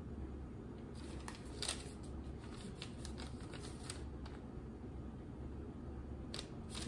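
Faint rustling and light clicks of shopping items being handled, over a low steady hum.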